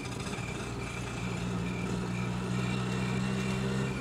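Auto-rickshaw engine running steadily as the vehicle drives, its low hum strengthening about a second in. A faint high tone pulses evenly over it.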